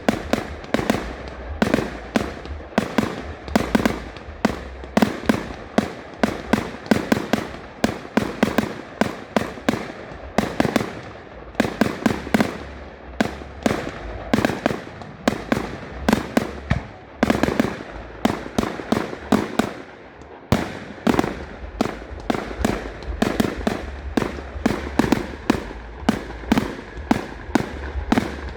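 Fireworks display: a dense, continuous run of sharp bangs from bursting shells, several a second, easing briefly around twenty seconds in before picking up again.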